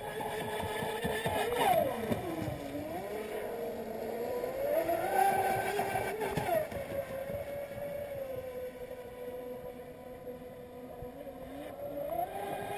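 High-pitched whine of a fast RC catamaran speedboat's brushless electric motor at speed on the water. The pitch rises and falls with throttle and passing, dropping sharply about two seconds in and again past the middle, sinking lower and quieter near the end before climbing again.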